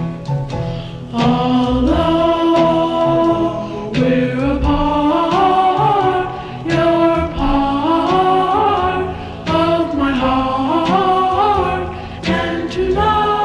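Background music: choir-like voices singing long held notes in phrases, over a low steady accompaniment.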